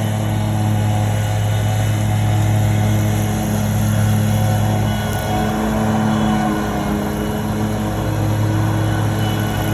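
Gas-powered lawn equipment engines running steadily at a constant speed, a loud, even hum that holds one pitch throughout.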